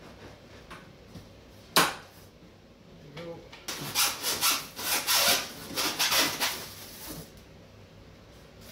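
A sharp knock, then a run of rubbing and scraping strokes as a styrofoam packing block is worked against the scooter's stem and the cardboard box.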